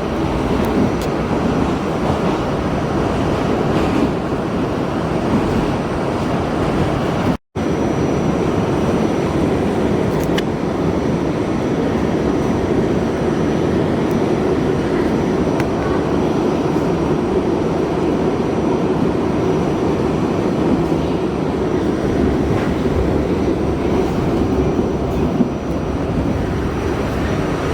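Steady running noise inside an R68A subway car in motion: an even rumble of wheels on rail and car body, with the sound cutting out for an instant about seven seconds in.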